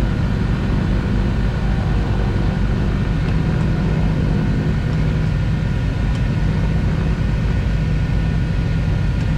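Piper Aerostar 700's twin piston engines running at low taxi power: a steady, even drone with a low hum.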